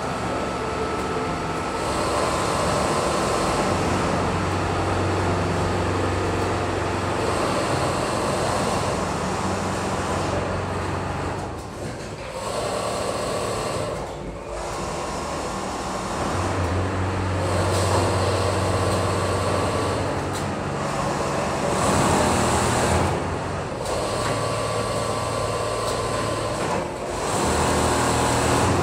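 Several Richpeace automatic sewing machines running, a steady mechanical hum and whir that swells and drops back every several seconds as machines start and stop their cycles.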